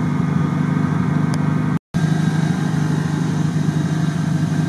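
Off-road vehicle engines running at a steady idle in the mud. There is a brief moment of silence just under two seconds in, then a steady engine idle carries on.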